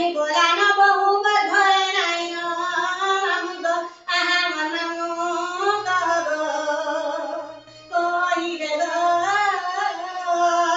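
A woman singing a folk song unaccompanied, in long held phrases with a wavering pitch, pausing briefly between phrases twice.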